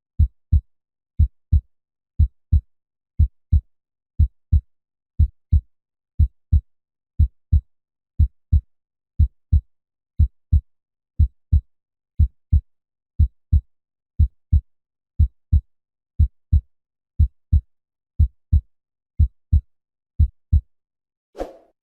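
Human heartbeat at 60 beats a minute: a steady lub-dub double thump once a second, low and dull. The beats stop near the end, and a brief different sound follows.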